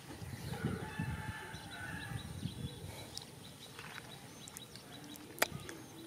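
Chickens clucking faintly in the background, with a low rustle and one sharp click about five and a half seconds in.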